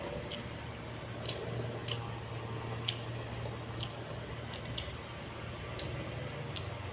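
A person chewing raw vegetables: wet, squishy mouth sounds with about nine sharp smacks or crunches scattered through, over a steady low hum.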